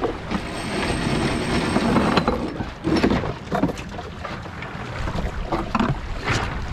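Wind on the microphone and water along the hull of a sailboat under way, with scattered knocks and clicks from lines and deck hardware.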